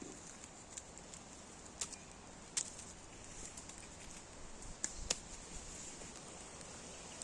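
Faint outdoor background hiss with scattered sharp clicks and ticks, a few seconds apart, the loudest about two and a half seconds and five seconds in.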